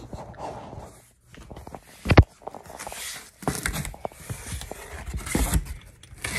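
Rustling and scraping as a cardboard box and the plastic-wrapped clothes on hangers inside it are handled, with a sharp thump about two seconds in.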